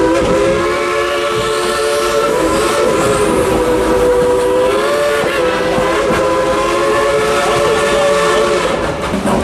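Steam locomotive's chime whistle blowing one long chord of several tones, wavering briefly about halfway through and stopping near the end, over the noise of the running train.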